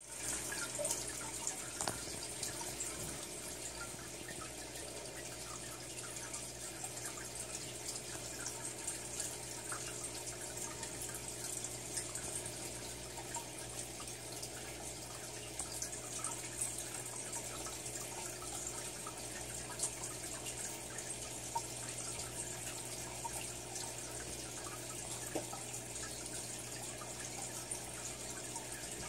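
Steady trickle of aquarium water with scattered small drips over a constant low hum, as from the filters and pumps of fish tanks.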